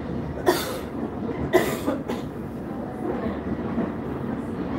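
Interior running noise of a Cologne Stadtbahn tram in motion, a steady low rumble of wheels on rail. Two short, sharp bursts of noise stand out over it, about a second apart near the start.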